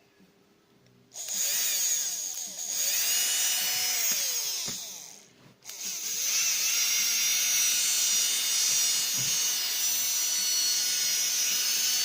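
Small brushed DC motor from a Bosch 10.8 V drill/driver being test-run: quiet for about a second, then it spins up with a high whine that shifts in speed, dies away about four and a half seconds in, starts again a second later and runs steadily. It is running evenly without sparking after its armature was cleaned and its commutator segments trued.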